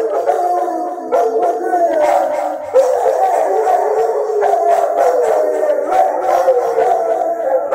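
Two Rottweilers howling together: long, overlapping, wavering howls that repeatedly slide down in pitch.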